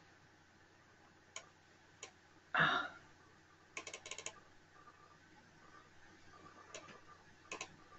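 Faint, scattered clicks and taps of a computer keyboard and mouse, including a quick run of clicks near the middle. One short soft noise, the loudest thing here, comes about two and a half seconds in.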